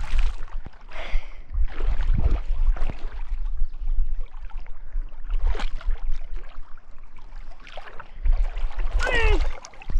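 River water splashing and sloshing around a person wading shin-deep, in irregular surges over a low rumble on the microphone. A short voice sound with falling pitch comes near the end.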